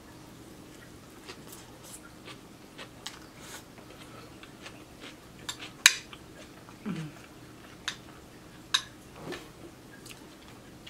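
A person eating enchiladas close to the microphone: chewing and lip smacks, with scattered sharp clicks of a metal utensil against a ceramic plate, the loudest about six seconds in.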